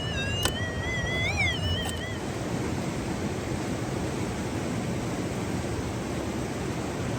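Minelab SDC 2300 metal detector's audio tone warbling up and down in pitch for about the first two seconds, then dropping out. A steady rush of running creek water fills the rest.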